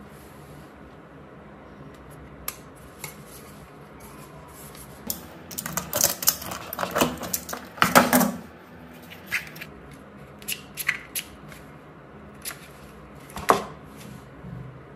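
Hands handling small hard plastic gadgets, a black case and a power bank: scattered clicks and taps, with a busy run of rattling and knocking about five to eight seconds in and a sharper knock near the end.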